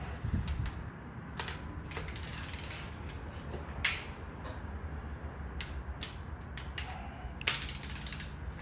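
Ratchet wrench working the cylinder head bolts of an LY5 5.3 L V8: scattered ratchet clicks and clinks of metal, with the sharpest knock about four seconds in. The torque-to-yield head bolts are being turned through an angle-tightening step that stretches them.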